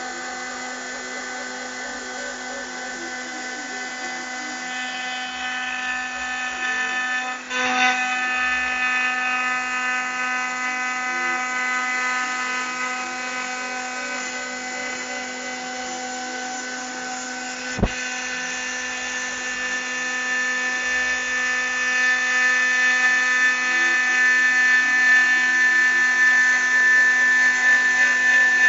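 CNC spindle whining steadily while engraving text into aluminium, a high machine whine with many even tones. It dips briefly about seven seconds in, gives one sharp click around eighteen seconds in, and grows louder near the end.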